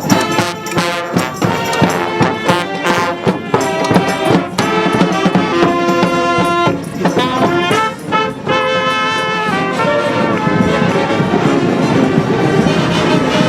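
Street brass band playing, with horns sounding held chords and melody lines over drum hits. The drumming is most marked in the first half, and there is a brief drop-off about eight seconds in.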